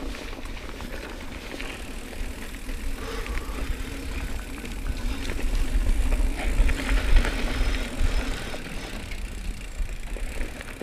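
Mountain bike riding down a dirt singletrack: knobby tyres running over the dirt and the bike rattling over bumps, with wind rumbling on the microphone, loudest about six to eight seconds in.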